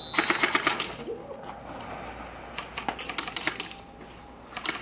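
Airsoft guns firing in quick bursts of sharp clicking shots: one burst right after a high electronic beep cuts off, another about two and a half seconds in, and a short one near the end.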